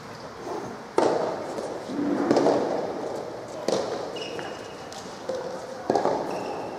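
Soft tennis rackets hitting the soft rubber ball: three sharp pops a couple of seconds apart, the first the loudest, each ringing on in a large hall. Short high squeaks of shoes on the court in between.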